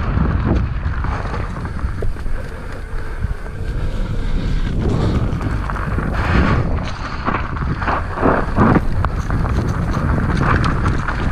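An e-mountain bike riding a dry, leaf-covered dirt singletrack, with wind buffeting the camera microphone as a steady low rumble. Over it come tyres crunching through the leaves and rattles and knocks from the bike over the bumpy trail, busiest in the middle of the ride.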